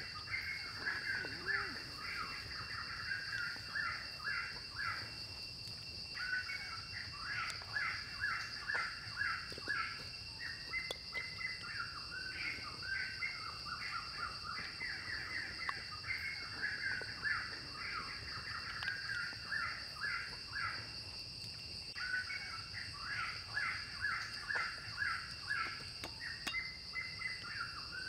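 Forest ambience: a bird singing long runs of quick, repeated chirps, pausing briefly a couple of times. Under it runs a steady, high insect drone.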